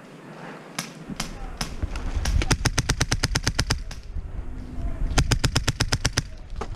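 Krytac airsoft rifle firing: a few single shots, then two fully automatic bursts of about a dozen shots a second, each lasting roughly a second, with a short pause between them.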